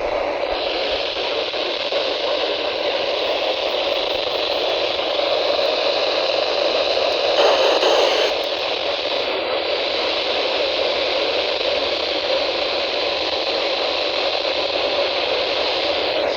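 Weather radio receiver hissing steady static, with no station audible: the broadcast signal has dropped out. The static swells briefly about seven and a half seconds in.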